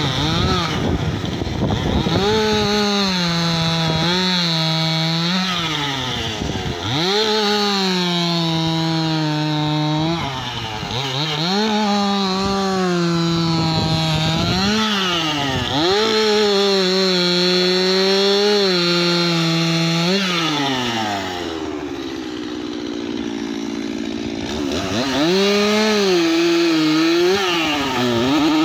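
Stihl MS 271 two-stroke chainsaw running at full throttle while cutting through a log, its pitch sagging as the chain bites and recovering again and again. About three quarters of the way in it falls to a lower pitch for a few seconds, then revs back up.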